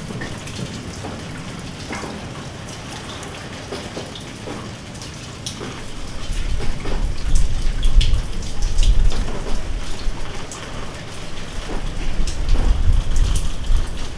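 Steady rain falling, with scattered individual drops ticking on a surface. About halfway through a deep low rumble builds and swells twice over the rain.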